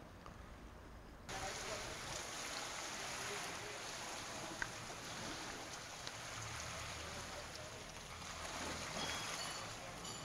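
Outboard engines of two RNLI rigid inflatable lifeboats running at low speed, under a steady rushing noise of water. The sound starts suddenly about a second in, after a quiet start.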